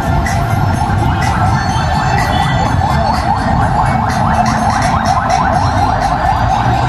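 Heavy rain falling on a paved plaza, with a steady wavering, siren-like wail over it.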